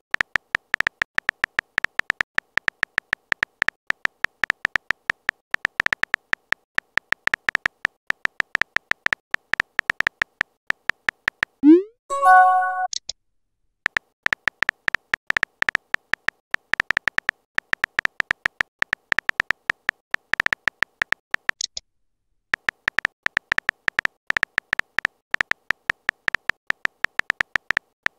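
A texting app's simulated keyboard clicking rapidly as a message is typed, several clicks a second. About twelve seconds in the clicking stops for a rising swoop and a short pitched chime as the message is sent, then the typing clicks start again.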